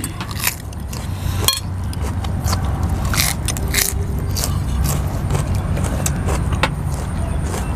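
Close-up eating sounds: crunchy chewing of raw vegetables and slurping of rice noodles from a spoon, with scattered crackly clicks. Underneath runs a steady low rumble.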